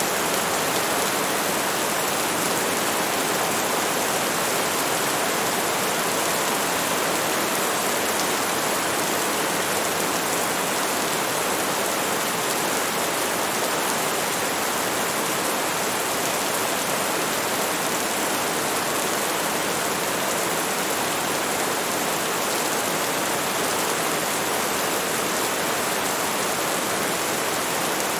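Steady rainstorm: an even, unbroken hiss of rain with no single drops or claps standing out.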